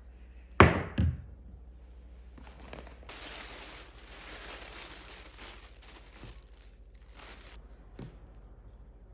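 Two sharp knocks about half a second apart, then a steady hiss lasting about four seconds, and a faint tap near the end.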